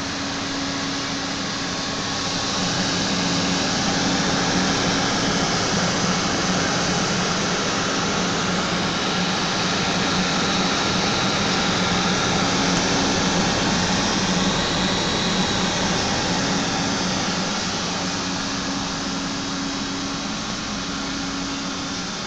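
Desktop computer's cooling fans whirring steadily over a low hum. The whir gets a little louder about three seconds in and eases off near the end.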